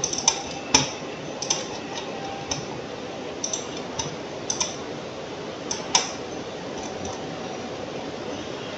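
Computer mouse clicking irregularly, about a dozen sharp clicks at uneven intervals, over a steady background hiss.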